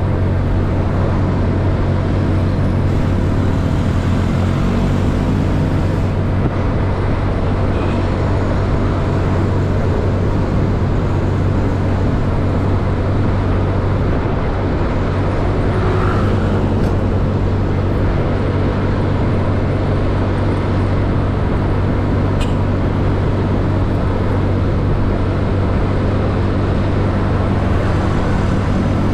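Yamaha Mio scooter's single-cylinder four-stroke engine running steadily under way, with road and traffic noise around it. A few seconds in, the engine note climbs as it speeds up.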